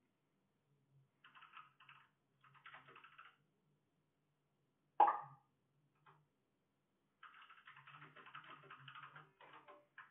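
Bursts of fast typing on a computer keyboard, faint, in three runs. One sharp knock about halfway through is the loudest sound.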